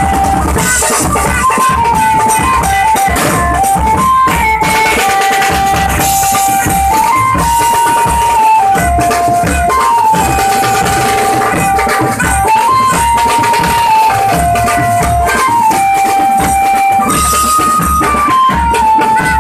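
Loud music with a pounding drum beat under a single melody line of held notes that step up and down.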